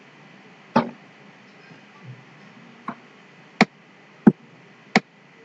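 Five sharp, separate clicks of a computer being worked by hand: one about a second in, then four more from about three to five seconds in, each roughly two-thirds of a second apart.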